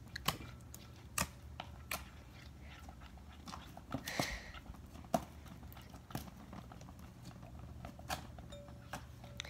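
Slime being stirred in a bowl: irregular sticky clicks and small wet pops, with a brief longer noise about four seconds in.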